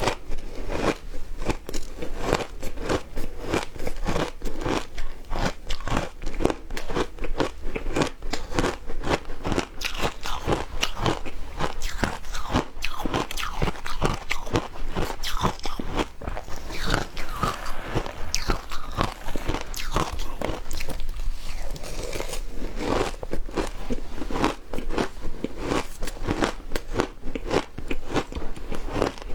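Frozen matcha ice being bitten and chewed: a continuous run of sharp, crisp crunches and cracks in quick succession, with no pause.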